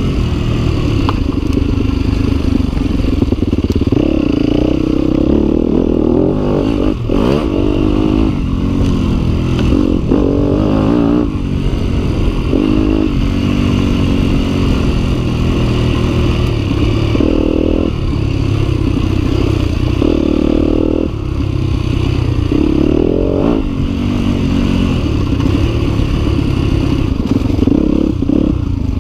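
Yamaha WR250F's 250 cc four-stroke single-cylinder engine revving up and down over and over as the bike is ridden off-road, with occasional knocks from the bike over rough ground.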